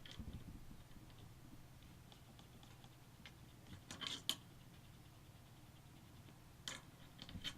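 A few faint clicks and light taps of small screws and a screwdriver being worked into a small PC case, in a cluster about four seconds in and again near the end, over a low steady hum.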